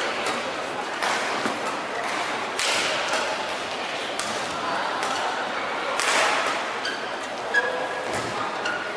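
Badminton rally: rackets strike the shuttlecock with sharp cracks at irregular intervals, with short shoe squeaks on the court floor, over a steady murmur of crowd in the hall.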